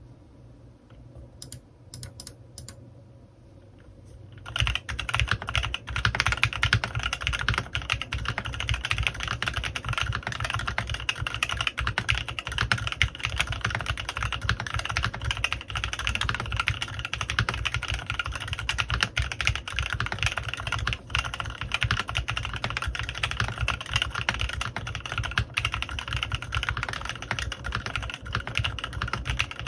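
Typing on a CannonKeys Rekt1800 custom mechanical keyboard with prototype Kailh x Swagkeys Lavender switches and PBTfans Resonance PBT keycaps. A few scattered keystrokes come first; from about four seconds in there is fast, continuous typing.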